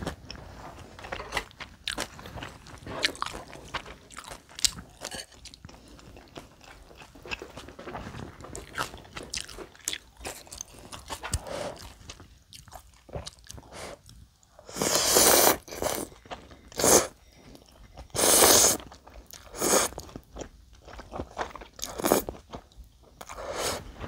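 Close-miked eating sounds: chewing and lip smacks over bibimbap and ramyeon noodles. In the second half come several loud noodle slurps, each about a second long.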